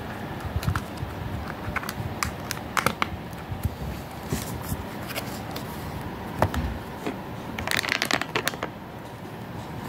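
Handling noise of a cardboard sound book being repaired: scattered clicks and scrapes as a coin-cell battery holder is pressed into place in its back panel. A burst of rustling comes near the end as the book is turned over.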